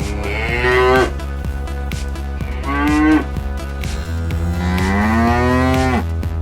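Cow mooing three times, the last moo the longest and rising in pitch, over electronic music with a steady beat.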